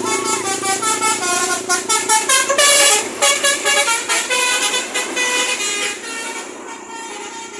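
Bus 'telolet basuri' musical air horn playing a quick tune of short notes stepping up and down in pitch, dying away about six and a half seconds in.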